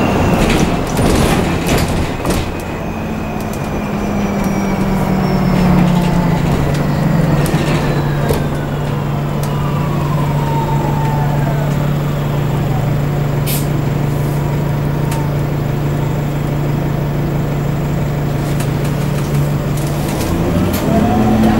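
Alexander Dennis Enviro400 Hybrid double-decker bus heard from inside. The electric drive whine falls in pitch as the bus slows, with a steady low engine hum underneath. Near the end the hum steps up and a rising whine comes in as the bus picks up speed, and a few knocks and rattles come from the body.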